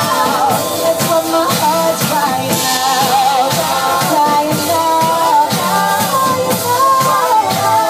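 Song with a steady drum beat and a woman singing long, wavering notes over it.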